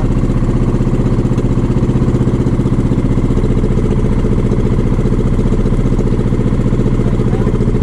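Small fishing boat's engine running steadily.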